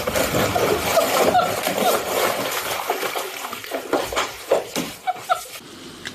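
A cat splashing and thrashing in a bathtub full of water. The churning is loudest for the first two to three seconds, then gives way to scattered shorter splashes.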